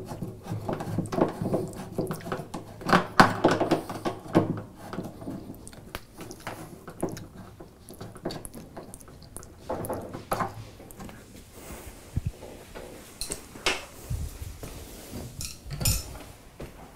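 Ratchet wrench clicking in irregular spurts, with metal tools clinking, as a bolt on a washing machine's tub ring is tightened. The spurts come thickest in the first few seconds, then thin to a few sharp clicks and knocks.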